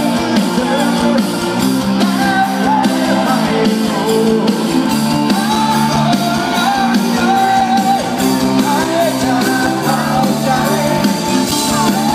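Live rock band playing through a concert PA, electric guitars and drums with a voice singing, heard from among the audience.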